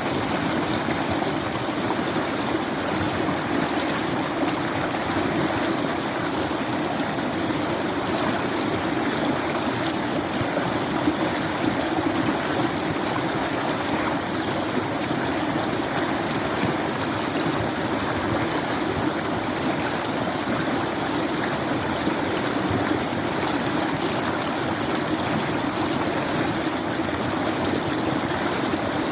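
Running water flowing and splashing steadily, without pauses.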